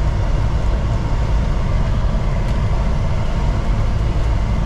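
Peterbilt 389 semi truck's diesel engine and road noise heard from inside the cab while driving at highway speed: a steady low drone with an even hiss of tyre and wind noise above it.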